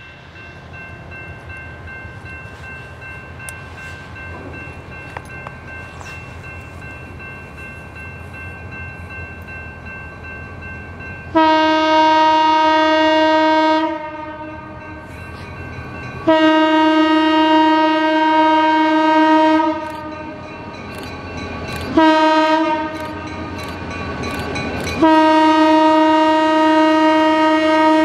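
The Nathan M3 air horn on Pan Am Railways locomotive 352, an unusual-sounding M3, blows the grade-crossing signal: two long blasts, a short one, then a long one, starting about 11 seconds in. Before the horn, the rumble of the approaching train grows steadily louder.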